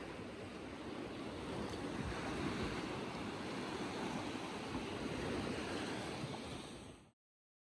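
Sea surf breaking and washing over a rocky shoreline: a steady rush of water that swells slightly in the middle, then cuts off suddenly just before the end.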